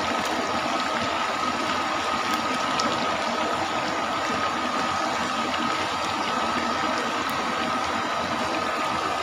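Chicken pieces deep-frying in a large aluminium wok of hot oil: a steady, dense sizzle of bubbling oil.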